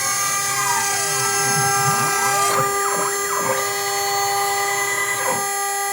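Homemade CNC router running: a steady whine of several fixed tones, with motor pitch sweeping up and down again and again as the machine moves through its cut. The sweeps stop about five seconds in, leaving the steady whine.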